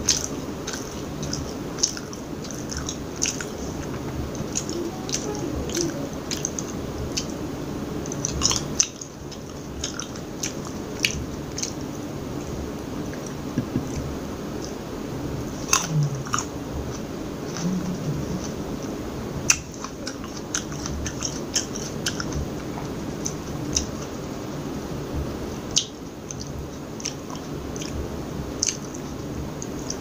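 Close-miked chewing and biting of a seedless green grape and a blueberry, with many short, sharp wet mouth clicks scattered through.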